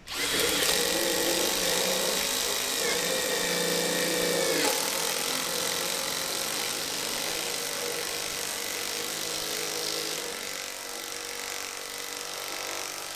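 Cordless 18 V brushless impact wrenches, a Bosch GDX 18V-1800 and a Dongcheng DCPB02-18 in low and high mode, hammering together as they drive 8 cm screws into a wooden log. One tool stops about four and a half seconds in and another about ten seconds in. The Dongcheng in low mode keeps hammering, quieter, to the end, because it is the slowest to seat its screw.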